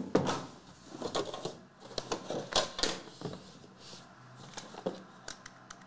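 Trading cards and their packaging being handled: irregular clicks, taps and short rustles.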